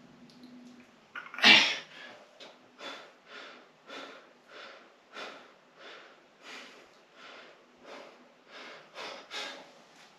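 A man breathing hard in short, forceful puffs, about one and a half a second, under the strain of a 205 lb barbell back squat. One loud, sharp exhale comes about a second and a half in.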